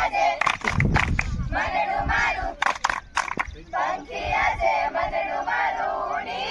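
A group of young women singing an action song together in unison, with a few sharp claps in the first few seconds.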